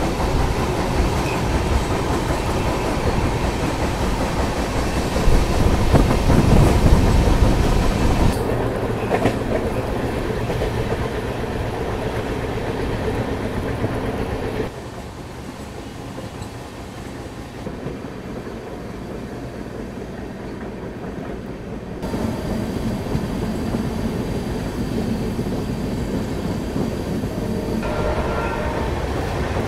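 Double-decker express train running on the track, a steady rumble of wheels and carriages that drops suddenly quieter about halfway through and comes back louder some seconds later.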